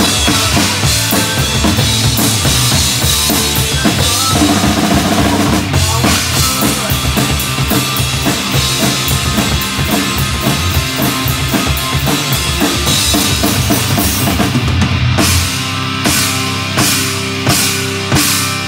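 Acoustic drum kit played hard, with kick, snare and cymbals, along to a punk rock recording with guitars and bass. Near the end the steady beat breaks into separated accented hits.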